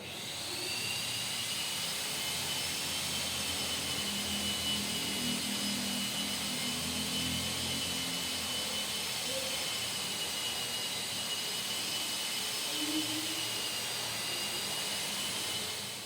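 A high-speed power or air tool running steadily, with a high whine over a hissing rush; it starts up and cuts off about sixteen seconds later.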